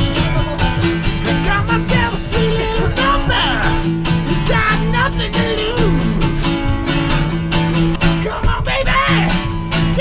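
Acoustic guitar strummed in a steady rhythm, played live, with a voice rising over it now and then.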